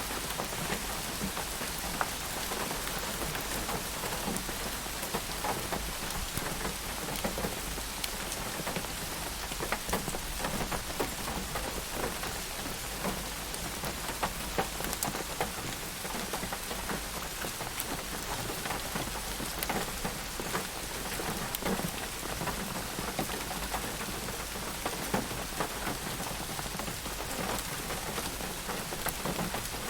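Steady rain, with many separate drops ticking on a surface.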